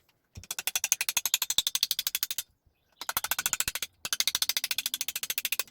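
Rapid, even ratcheting clicks, about twenty a second, from a ratchet wrench being spun on engine fasteners. They come in three runs: about two seconds, then one second, then a longer run, with short stops between.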